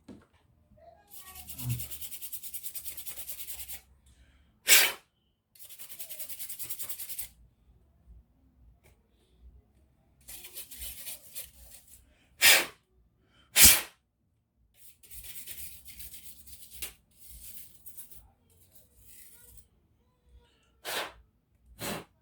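Spells of quick rubbing or brushing strokes, each lasting a second or two, broken by about five short, sharp hisses, from hands working on and cleaning laptop parts.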